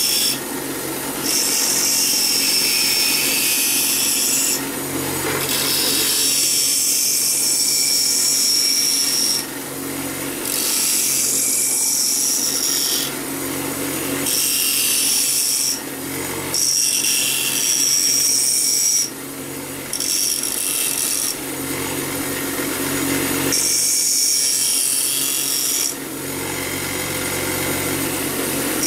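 Bench grinder running steadily while the tip of a steel bolt, held in locking pliers, is pressed against the wheel to grind it to a cone. About eight passes of a few seconds each bring a loud, high grinding sound over the grinder motor's steady hum, with short breaks between them.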